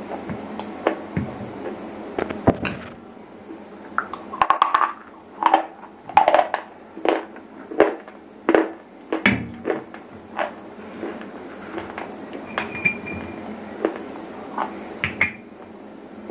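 Close-miked crunching as a piece of shele stone (edible stone or clay) is bitten and chewed, a run of sharp crunches about every two-thirds of a second in the middle stretch. Later come a few light ringing clinks of ceramic against ceramic.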